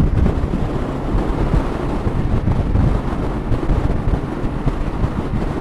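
Heavy wind buffeting on a sponge-covered microphone, an unsteady low rumble, over the steady running of a Yamaha Ténéré 700's parallel-twin engine as the motorcycle cruises at road speed in a strong, gusty side wind.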